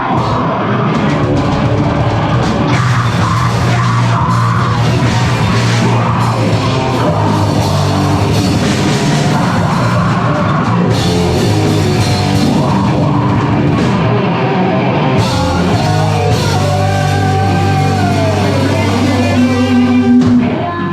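Live heavy rock band playing loudly, with a drum kit and sustained low bass notes under the full band.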